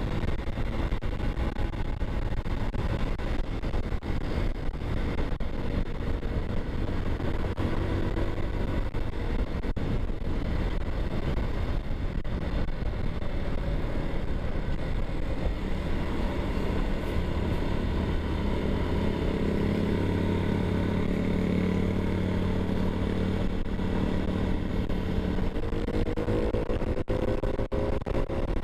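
Honda TMX 125 single-cylinder four-stroke engine running at cruising speed, heard through steady wind rush on the microphone. The engine note holds steady, then rises near the end as the bike speeds up.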